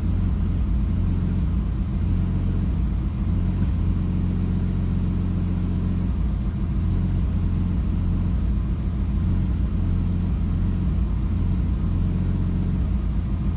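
Nissan Stagea wagon's engine running with a steady low drone, no misfire or stumble heard: it is running smoothly at this moment, though the owner says it has intermittently run rough and plans new spark plugs and coil packs.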